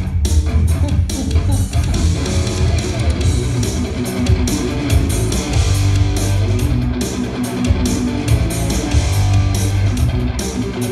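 Electric guitar played live through Marshall amplifiers, loud and continuous, with a deep bass underneath.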